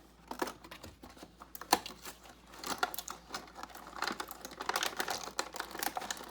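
A small advent calendar door being pried open and the little toy inside handled: an irregular run of small clicks, taps and crinkles.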